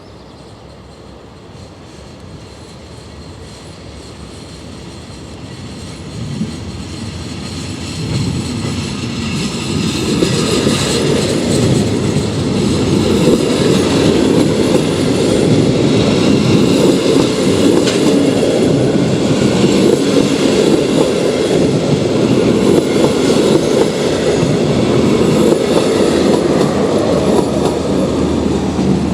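Diesel-locomotive-hauled regional passenger train running on the rails. It grows steadily louder over the first ten seconds or so, then stays loud, with wheel clatter and a faint high squeal from the brakes.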